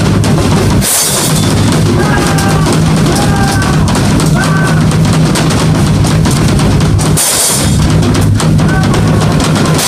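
Acoustic Yamaha drum kit played flat out: continuous, very loud pounding of bass drum, snare and toms under a wash of crashing cymbals, with two brief breaks, one about a second in and one about seven seconds in.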